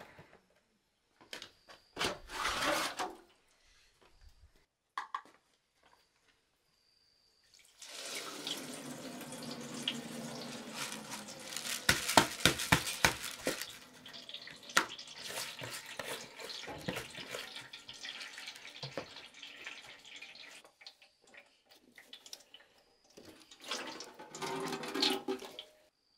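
Wet purple-dyed sticky rice and its soaking water poured from a plastic basin into a cloth-lined aluminium basin: water splashing and grains pattering and clicking for about thirteen seconds, starting about eight seconds in and heaviest near the middle. Shorter splashes or rustles come near the start and near the end.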